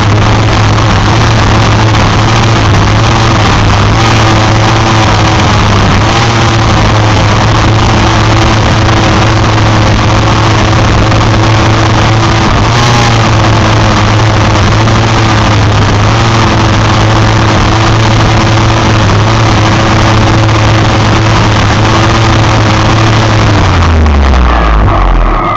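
Kobalt 24V cordless string trimmer running at full speed at a steady pitch, its spinning line cutting through grass, weeds and brush. Near the end the motor's pitch falls as it spins down.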